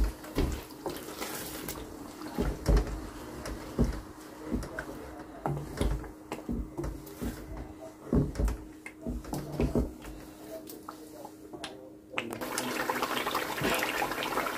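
Wooden spatula stirring curry in an aluminium karahi, knocking and scraping against the pot roughly once a second over a faint steady hum. About twelve seconds in, water starts running and splashing continuously.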